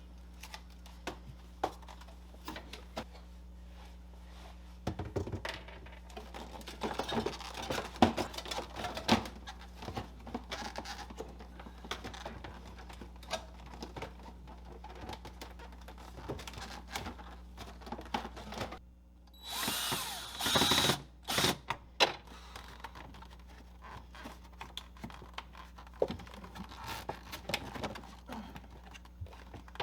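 Plastic refrigerator parts being refitted by hand: scattered clicks, taps and knocks as plugs are pushed in and a panel is set back in place, over a steady low hum. A louder, denser burst of rattling comes about twenty seconds in.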